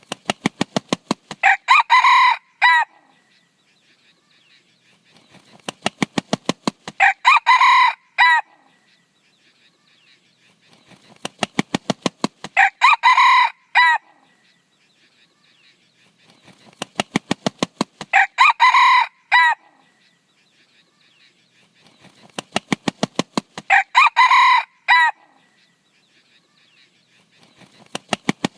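A red junglefowl cock crowing about five times, roughly every five and a half seconds. Each short crow comes right after a quick run of wing claps.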